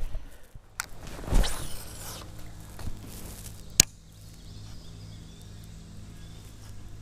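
Handling noises in a kayak: a brushing swish about a second in and a sharp knock a little before the middle, then only a faint low hum.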